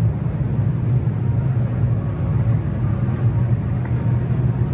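A steady low rumbling drone of background noise in a large hall, with no clear events on top.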